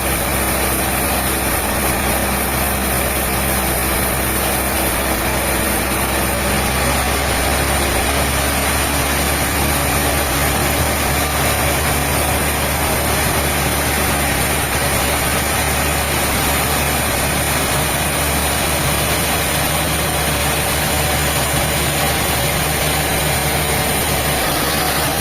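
An engine running steadily at a constant speed, with a low hum and a hiss over it.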